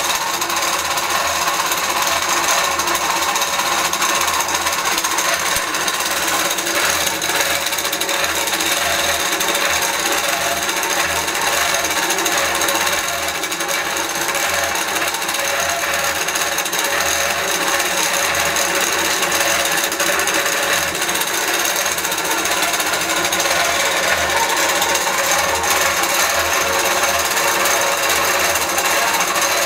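Innova long-arm quilting machine running steadily, its needle stitching rapidly through the quilt layers as it is moved by hand.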